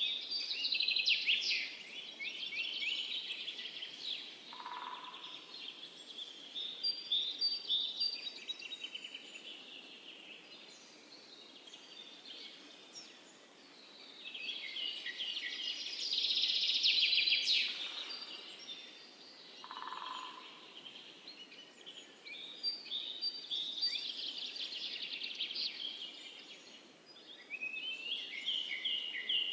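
Songbirds singing in repeated bouts of rapid chirps and trills over a faint steady background hiss, with a short lower call twice.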